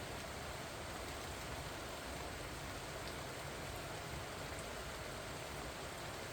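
Steady rain falling on pumpkin vines and their leaves, an even, unbroken hiss.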